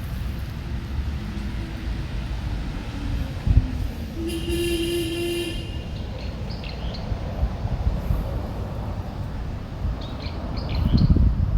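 A steady low outdoor rumble, with a horn-like pitched tone lasting about a second and a half near the middle.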